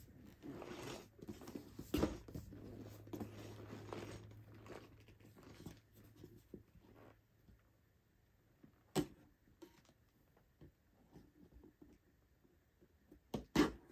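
Cardboard box being handled and turned over, then scissors scraping and snipping along its sealed flaps to open it. Rustling and scraping, with a few sharp clicks; the loudest comes about nine seconds in and another near the end.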